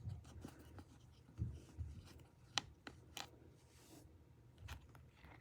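Faint, scattered clicks, taps and light scraping of small hand tools and fingers working on the opened iPhone 7's internals, with one sharp, louder click at the very end.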